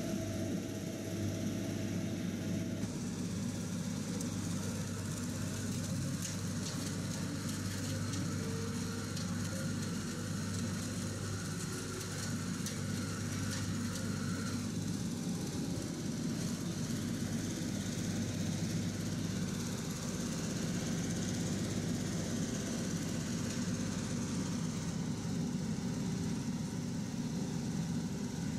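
Engines of harbour-works machinery running steadily, a constant low drone; a higher steady tone in it stops about three seconds in.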